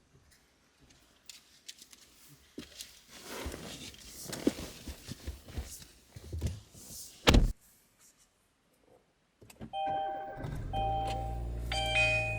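Scattered clicks and rustling of things being handled, then one heavy thump about seven seconds in. Music starts near the end.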